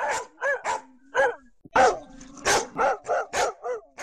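A dog barking: a quick series of about a dozen short, sharp barks, some close together and some with short gaps between them.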